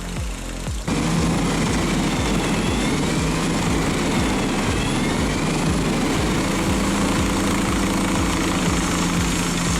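A truck-mounted wood chipper running loud and steady, its engine and spinning drum making a constant hum with a dense noise over it. It starts abruptly about a second in.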